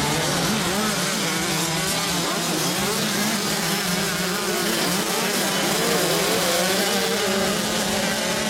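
Several motocross bike engines revving at once, their pitches rising and falling over one another as the riders accelerate and back off.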